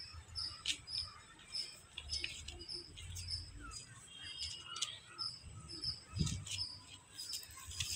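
A bird chirping over and over, short high chirps repeated a couple of times a second, with a few soft knocks and a light rustle beneath.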